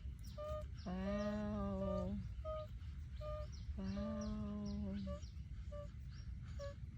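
Background music: a low note held steady for over a second, heard twice, with short higher notes ticking along in an even rhythm of about two a second.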